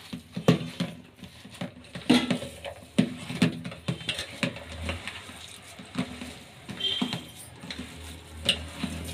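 A hand mixing and squeezing a wet mix of soaked poha, semolina, curd and chopped vegetables in a steel bowl: irregular squishing with scattered knocks and clicks against the bowl.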